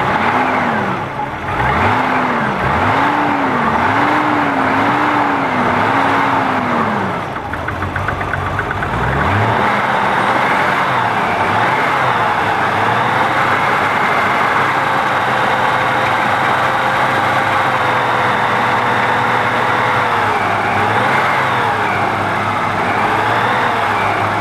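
BMW M20 straight-six engine running unevenly: the revs rise and fall about five times in the first seven seconds, sag low around eight seconds, then pick up and hold a higher speed that keeps wavering. The engine will not hold a steady idle on its first start after the fuel system was resealed.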